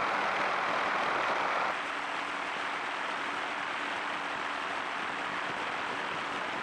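Helicopter engine and rotor noise, a steady hum under a broad rush of noise. The level drops abruptly a little under two seconds in, then stays steady.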